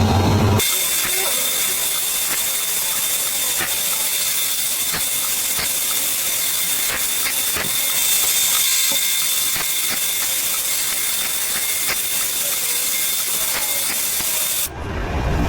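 A steady mechanical hiss with a thin high whine and faint scattered ticks, starting about half a second in and breaking off shortly before the end.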